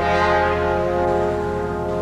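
Orchestral score music: sustained chords held steady, entering on a sharp attack at the start.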